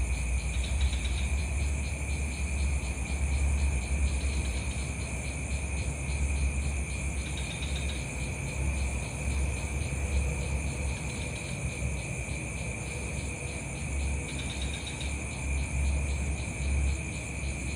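Insects, crickets or similar, chirring in a steady chorus at several pitches, one of them a fast pulsing trill that swells briefly three times. A low rumble runs underneath.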